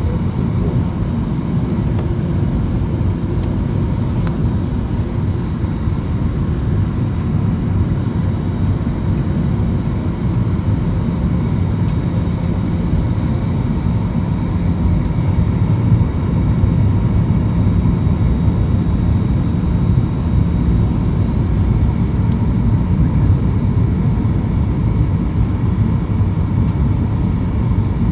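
Airliner cabin noise on descent: a steady low rumble of engines and rushing air, with faint steady engine whines. It grows a little louder about halfway through.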